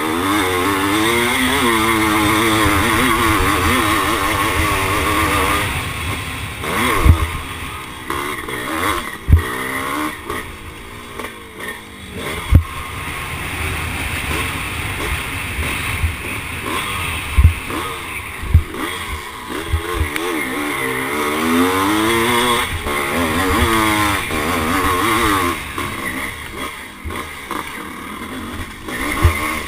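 1978 Husqvarna CR390 two-stroke single revving hard under race load, its pitch climbing through the gears and dropping off repeatedly as the throttle is opened and closed. Several sharp knocks break in as the bike hits the rough track.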